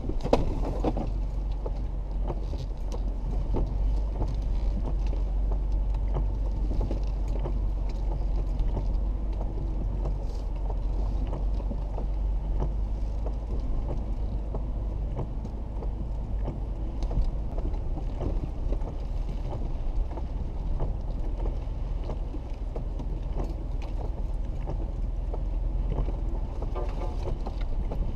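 Jeep Wrangler JK driving slowly along a muddy dirt trail, heard from inside the cabin: a steady low rumble of engine, drivetrain and tyres, with scattered small clicks and knocks.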